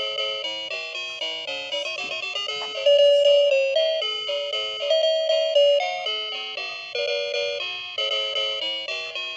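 A tinkling bell-like tune played as quick struck notes, a few a second, each one ringing and fading.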